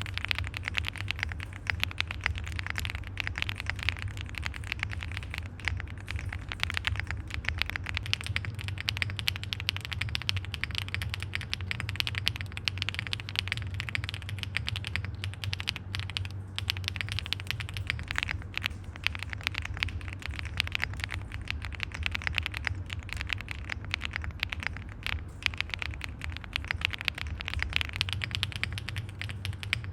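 Continuous fast typing on an Owlab Link65 custom 65% mechanical keyboard with HMX Poro switches, a POM plate, full foam dampening and KBS Mac keycaps: a dense, steady stream of keystroke clicks.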